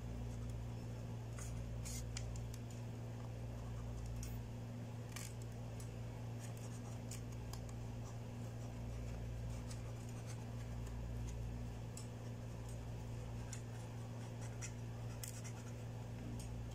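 Table knife slicing slowly through a soft rice-flour serabi pancake, the blade scraping and tapping now and then on the ceramic plate beneath, in scattered faint scrapes and clicks. A steady low hum runs underneath.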